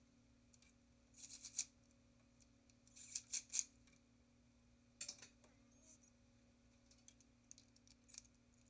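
Three short bursts of rapid clicking from a tool turning the 13 mm bolts of a BMW M54 oil filter housing, about a second in, around three seconds and at five seconds, with a few faint ticks after.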